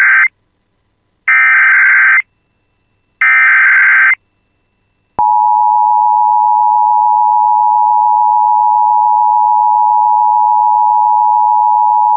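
Emergency Alert System broadcast: the end of one burst and then two more bursts, about a second each, of digital SAME header data tones, then the steady two-tone EAS attention signal, starting about five seconds in and holding.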